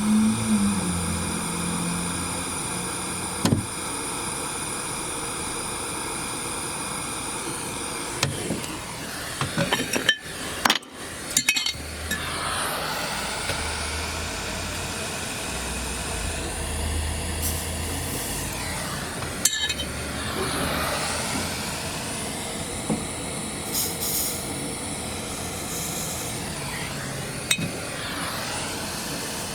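Scattered sharp clinks and taps of jeweller's metal tools, with a quick cluster about ten seconds in, over a steady mechanical hum that is strongest in the first few seconds.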